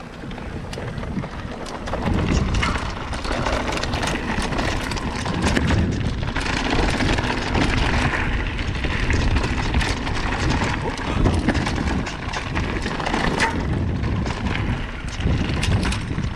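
Mountain bike descending a rough trail: tyres rolling over rocky ground, the bike rattling with many sharp knocks over the bumps, and wind rushing over the microphone.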